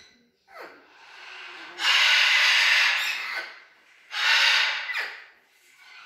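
Parrot screeching: a short falling call about half a second in, then two loud, harsh screeches, the first lasting over a second, the second shorter near the end.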